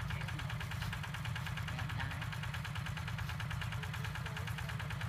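A two-wheel walking tractor's engine idling steadily with a fast, even beat.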